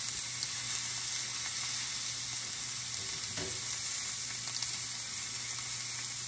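Chuck roast sizzling steadily as it sears in a hot cast-iron skillet on a gas burner, with a low steady hum underneath.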